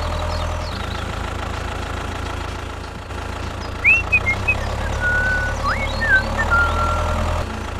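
Tractor engine sound running steadily at a low rumble, cutting off near the end. A few short high whistled chirps come over it in the second half.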